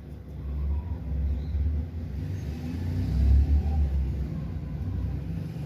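A low, uneven rumble, loudest about three seconds in.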